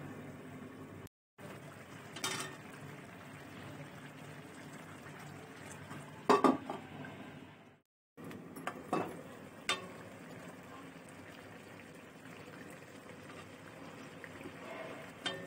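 Aluminium pot lid and kadhai clinking against each other a few times, the loudest cluster about six seconds in and lighter clinks around nine to ten seconds, as the lid is handled. Beneath them, the steady hiss of the stew simmering under its lid, with two brief gaps of silence.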